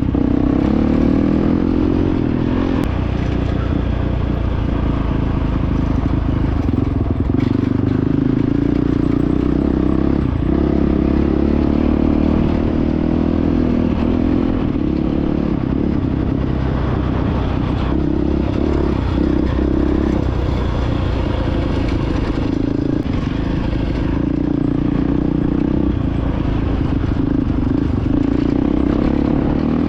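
2022 Honda CRF450X's single-cylinder four-stroke engine running steadily under way, its pitch shifting slightly as the throttle changes.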